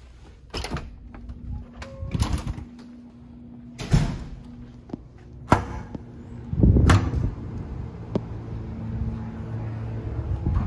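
Doors being pushed open and swinging shut: a run of sharp clunks and knocks from latches and a metal pull handle, with one heavier thud about two-thirds of the way in, over a steady low hum.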